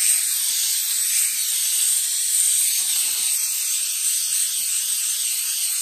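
Aerosol can of coconut oil cooking spray hissing steadily as it sprays a frying pan, one continuous unbroken spray.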